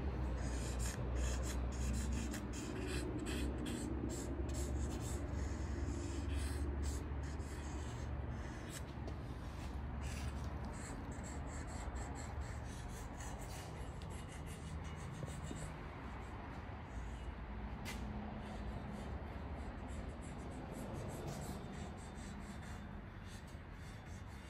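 Light scratching and rubbing of a pencil marking an intake gasket where it is to be cut, densest in the first ten seconds, over a steady low rumble.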